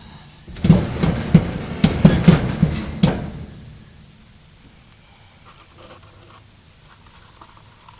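New Holland Super Hayliner 69 baler's drive mechanism being turned over by hand, its gearing clunking and rattling in a run of sharp knocks for about two and a half seconds, then only faint small knocks. It is rolled to help thick, decades-old gear oil drain from the gear case.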